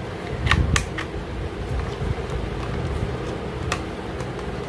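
Sharp plastic clicks as a toy race car's plastic wheel is pushed onto its metal axle and the car is handled: three close together about half a second in and one more later, over a steady background hum.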